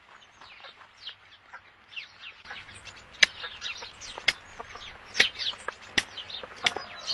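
Chickens clucking and chirping: many short, high chirps overlapping, growing busier and louder about two and a half seconds in, with a few sharp clicks among them.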